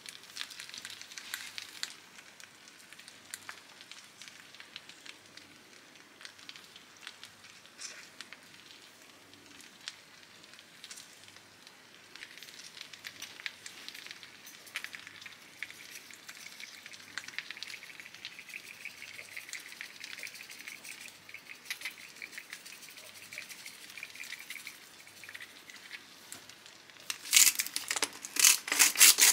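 Minced meat and potatoes sizzling gently in a frying pan, with scattered faint crackles. Near the end a salt grinder is twisted over the pan: a loud, rapid grinding rattle.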